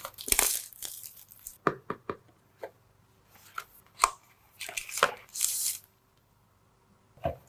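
Hands handling a smartphone's retail box and packaging: a series of separate taps and clicks with a few short rustles of plastic or paper, then a pause and one more knock near the end.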